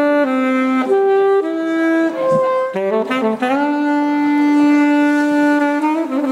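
Alto saxophone playing a slow melody: a few held notes, a quick run of short notes about three seconds in, then one long held note of about two and a half seconds.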